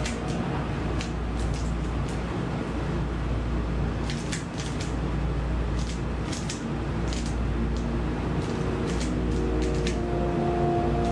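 Irregular clusters of plastic clicks and clacks from a Dayan Guhong V3 M magnetic speed cube being turned during a solve, over background electronic music.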